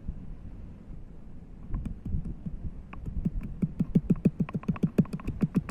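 Ginger being pounded with a pestle in a stone mortar: a few scattered thuds, then from about three seconds in a fast, steady run of strikes, about six a second.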